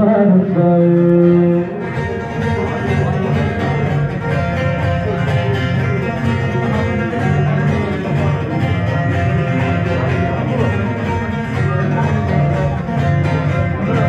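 Bağlama (saz), the long-necked plucked lute of Alevi cem music, playing an instrumental passage between sung verses to accompany the semah dance.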